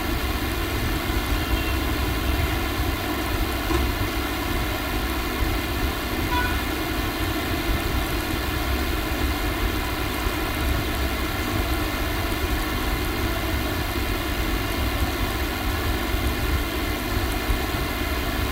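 Steady background hum: constant noise with several steady tones from a running machine, unchanging throughout.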